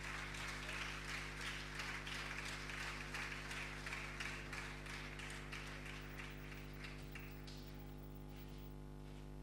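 Audience applause, dense at first and fading out over the last couple of seconds, over a steady low hum.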